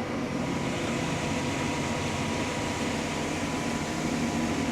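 Tractor engine running steadily at high throttle, driving the grain cart's unloading auger as corn is emptied into a truck trailer.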